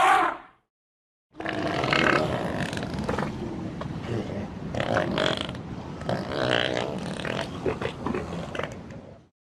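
Elephant vocalising with low, rough rumbles and grunts for about eight seconds, after the end of a short call just at the start.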